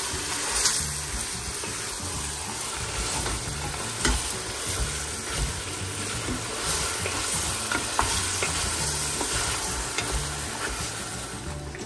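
Pieces of duck and chicken sizzling as they fry in a pot, with a few sharp clicks and scrapes from stirring.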